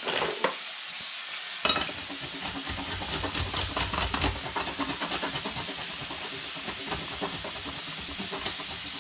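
A block of hard cheese being grated on a metal hand grater in repeated rasping strokes, starting a little under two seconds in. Underneath is the steady sizzle of bacon and garlic frying in a pan.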